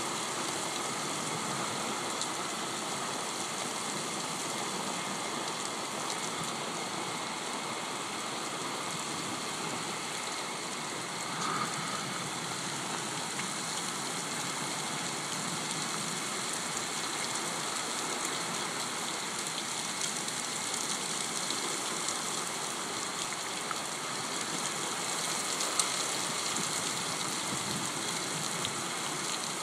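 Steady downpour of rain falling on wet pavement and ground during a thunderstorm.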